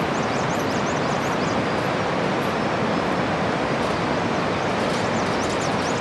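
Steady rushing of a mountain river in the gorge below a suspension bridge, with a few faint high chirps near the start and near the end.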